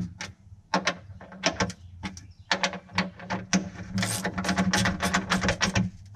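Quick, irregular metal clicks and knocks, thicker toward the end, as the steel pin and parts of a jet ski driveline alignment fixture are handled at the pump bulkhead plate. A low steady hum runs underneath.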